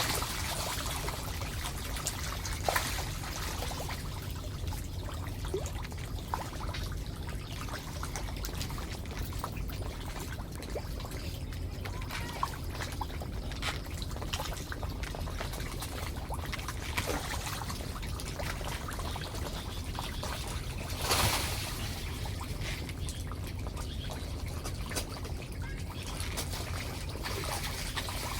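Water trickling and pouring steadily over a low rumble, with a couple of brief louder swells.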